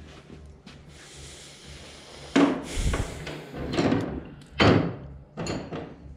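A series of sharp clanks and knocks from handling metal parts and tools around a tractor transmission hung in chains on an engine hoist. The loudest come about two and a half and four and a half seconds in.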